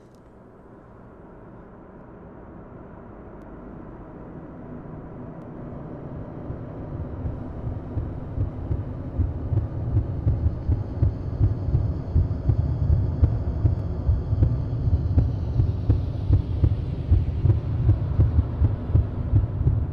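A low, throbbing bass pulse from the film's soundtrack that swells steadily from faint to loud, beating about twice a second. A faint high tone arcs downward midway through.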